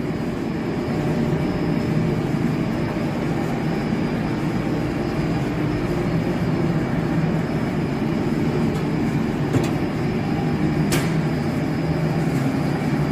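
Steady low drone of running chiller-plant machinery, with two faint clicks near the end.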